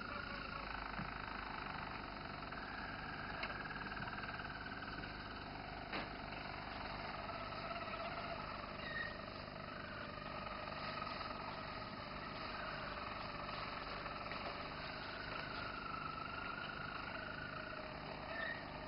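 Roller canary singing its low, continuous rolling song with the beak closed: long, even trills that shift a little in pitch and change every few seconds.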